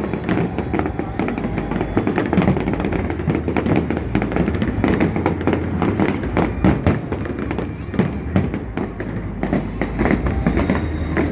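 Fireworks bursting in quick, irregular succession, many sharp bangs and crackles over a continuous low rumble.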